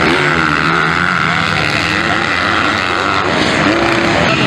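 Several motocross bike engines revving up and down as the bikes race around the track, the pitch rising and falling as the riders work the throttle and shift.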